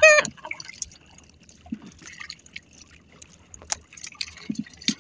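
Wet fishing line hauled in by hand over the side of a small wooden outrigger boat: water trickling and dripping off the line, with scattered light knocks and splashes. It opens with a short, wavering vocal cry.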